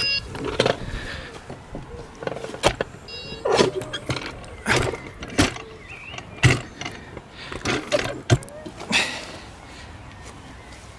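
Camera handling noise as it is picked up and carried: a string of irregular knocks, with clothing rubbing over the microphone. About nine seconds in it settles to a quiet, steady background.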